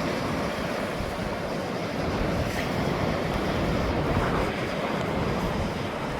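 Ocean waves washing on the shore in a steady rush, swelling a little in loudness about two seconds in, with some wind on the microphone.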